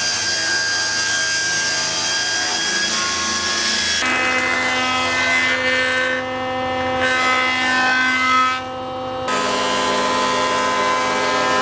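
Stationary woodworking machines cutting beech boards: a table saw ripping, then a planer. The motor's steady whine runs under the noise of the blade and cutters in the wood, and the sound changes abruptly twice as one cut gives way to the next.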